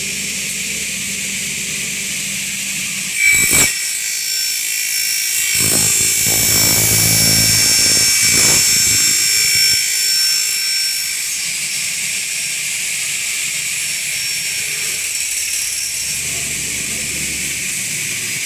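A double-head aluminium cutting saw's twin 2.2 kW motors and blades run with a steady high whine. About three seconds in there is a short loud burst. From about five to eleven seconds in the blades cut through an aluminium profile, which is louder, and then they spin on freely.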